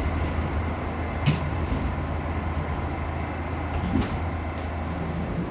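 New York City subway train running through a station, heard from inside the car: a steady low rumble of wheels on rail with a faint high whine, and two sharp clacks, about a second in and again near four seconds.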